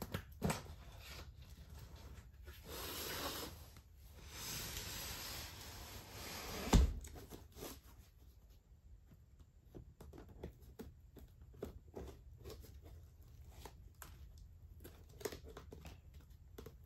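Packing tape on a cardboard box being slit and picked at with a thin pointed tool, with two stretches of scratchy tearing, a sharp thump against the box about seven seconds in, then small scratches and taps as the stubborn tape resists.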